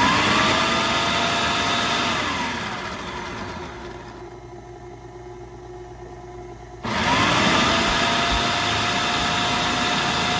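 Food processor grinding Oreo cookies into crumbs, run in two pulses. Each time the motor spins up with a rising whine, runs steadily, then coasts down. It starts again about seven seconds in.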